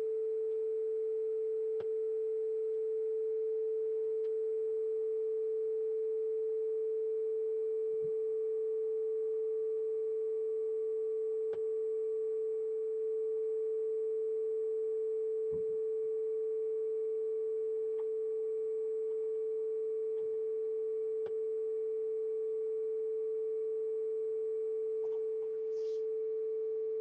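A steady sine-wave test tone at one unchanging mid pitch, played through old PC speakers, that cuts off suddenly at the end.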